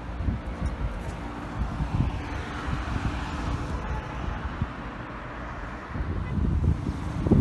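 Wind buffeting the microphone in uneven low gusts over light street traffic noise, the gusts growing stronger near the end.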